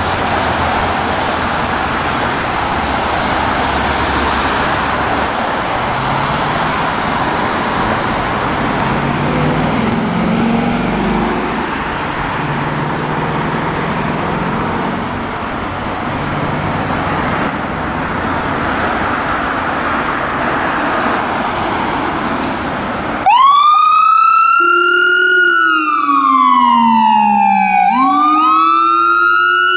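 Steady background noise, then about 23 seconds in a fire engine siren starts abruptly and wails, its pitch rising and falling slowly, with a second, quicker rising sweep joining near the end. The siren is on a 2018 Pierce Dash CF fire engine leaving its station on a call.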